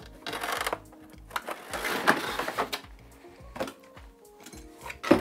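Cardboard box and packaging being handled, with two spells of rustling and scraping cardboard in the first few seconds, a click later and a sharp knock near the end, over background music with a steady beat.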